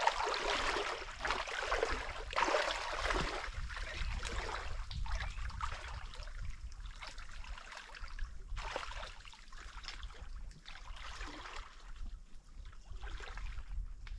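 Footsteps wading through shallow water, a steady run of splashing sloshes that grows fainter as the wader moves away.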